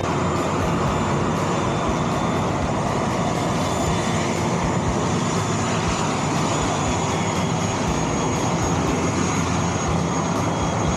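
Turboprop airliner engines running on the apron: a steady, loud roar with a thin, high turbine whine held constant over it.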